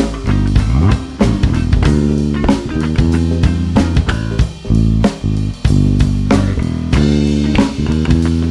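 Live instrumental funk from a trio: an electric bass line with a few sliding notes, electric guitar, and a drum kit keeping a steady beat.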